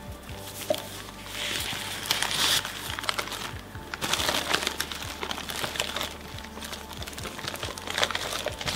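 Paper wrapping of a nasi bungkus takeaway parcel being unfolded and pulled open by hand: irregular crinkling and rustling, with sharp crackles.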